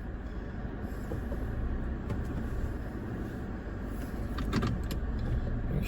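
Car driving slowly, a steady low road and engine rumble heard from inside the cabin, with a few faint clicks about four and a half seconds in.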